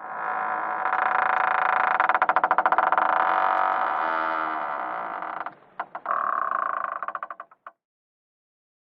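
Wooden door creaking on its hinges: one long creak made of rapid ticks, then after a brief pause a second, shorter creak whose ticks slow and spread apart before it stops.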